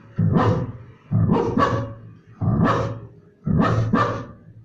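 A man imitating a young adult dog barking with his voice: four deep barks about a second apart.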